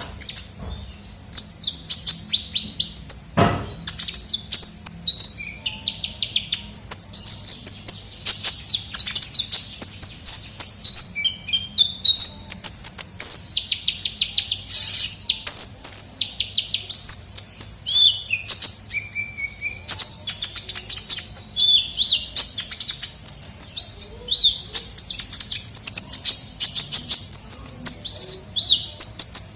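Kolibri ninja (Van Hasselt's sunbird) singing non-stop: rapid high-pitched chirps, fast trills and short rising and falling whistled notes in quick succession.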